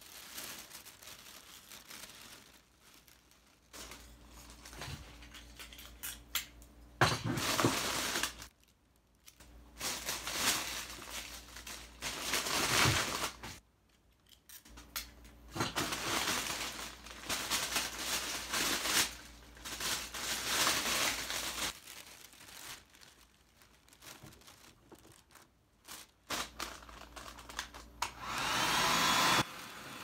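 Clear cellophane gift-basket wrap crinkling in bursts as it is handled. Near the end a hand-held hair dryer switches on, its motor whine rising as it spins up, then blowing steadily at the plastic wrap.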